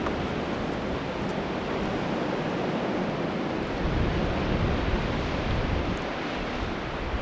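Blizzard wind blowing in a steady rush, with gusts buffeting the microphone in a low rumble that comes and goes.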